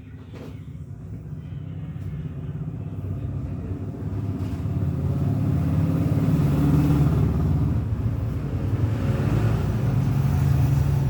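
A motor vehicle's engine rumbling, growing steadily louder over the first six seconds and then staying loud.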